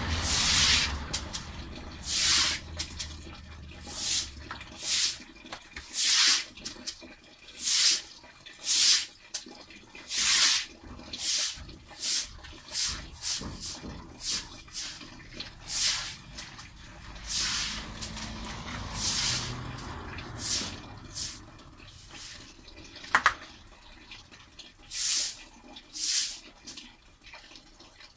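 Repeated swishing and splashing of water on a wet concrete floor, about one stroke a second with uneven gaps. A passing car's low rumble sounds under it for the first few seconds.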